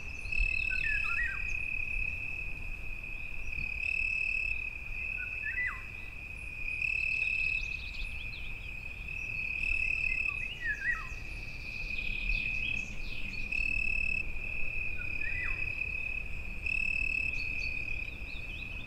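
Crickets trilling in one continuous high-pitched tone that swells slightly about every three seconds. A bird gives a short downward-sliding call four times, roughly every five seconds.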